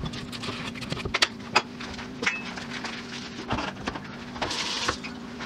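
Irregular taps and clicks of butter pieces and a rubber spatula against a stainless steel saucepan, with a short rustle of the butter's paper wrapper near the end. A steady low hum runs underneath.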